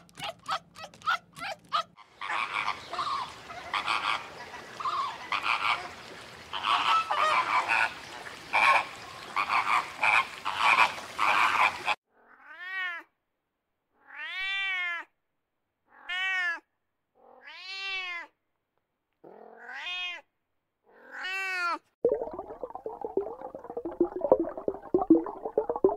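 Fishing cat meowing: six separate calls over about ten seconds, each rising and then falling in pitch. Before them, a dense noisy stretch of other sound; near the end, a dense lower noise.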